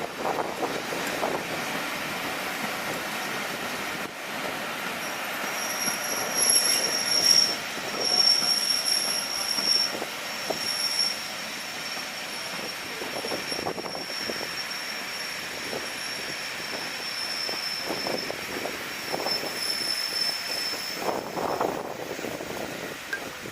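Train rolling past with a high, steady wheel squeal that sets in about five seconds in and fades out near the end, over the noise of the wheels on the rails.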